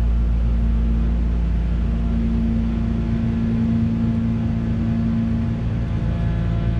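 Diesel engine of a yellow farm wheel loader running steadily as the machine drives away; the engine note firms up slightly about two seconds in.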